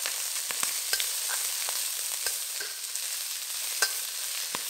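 Chopped garlic, spring onions and red chilli sizzling in hot oil in a wok, with a metal spatula stirring them and clicking and scraping against the wok now and then.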